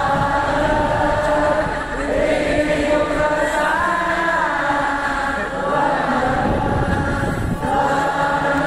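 A concert crowd singing along together, many voices carrying the melody over a live rock band's quieter backing.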